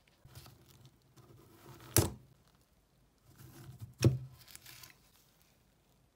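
Handling noise as a small DC drill motor is pried apart with pliers: rustling and scraping, with two sharp metal clicks about two seconds apart, the loudest sounds here.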